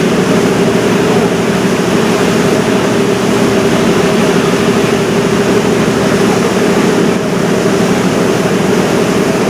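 River cruise boat's engine running with a steady, loud drone: a constant low hum over an even rushing noise.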